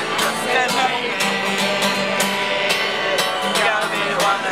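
Background music: a song with strummed guitar and a steady beat.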